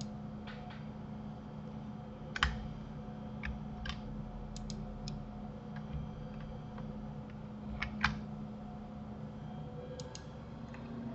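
Scattered, irregular clicks of a computer keyboard and mouse, the loudest two about two and a half and eight seconds in, over a steady low hum.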